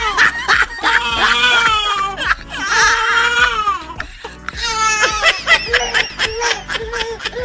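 Dubbed laughter sound effect over background music: high-pitched laughing in short repeated bursts, loudest about five seconds in.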